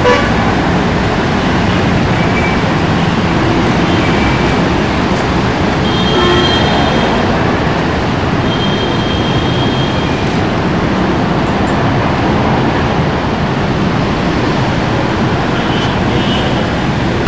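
Steady city traffic noise, an unbroken wash of road sound, with a few faint short high tones near the middle.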